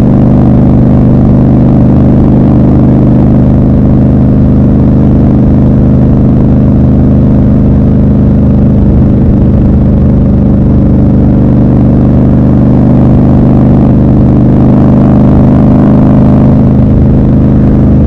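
Triumph Scrambler 1200 XC's 1200 cc parallel-twin engine running at steady cruising revs while riding, a loud and even engine note that shifts slightly near the end.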